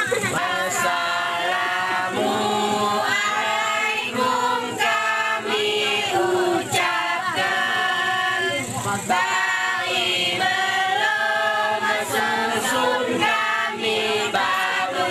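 A group of voices singing a mesekat chant together, unaccompanied, in long held and gliding notes that change every second or so.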